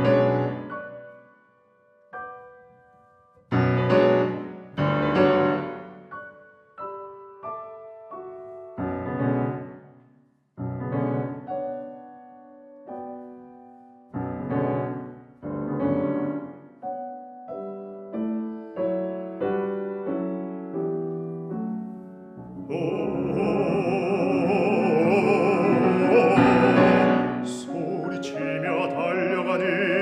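Grand piano playing a slow introduction of struck chords that ring and fade away one after another. About three quarters of the way in, a male classical singer comes in, singing with vibrato over the piano.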